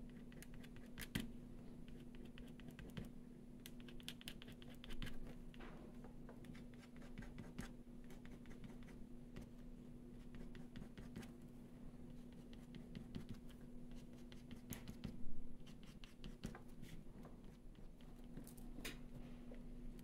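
Posca paint pen marking on paper: short scratchy strokes and small taps and clicks, with a louder knock about fifteen seconds in.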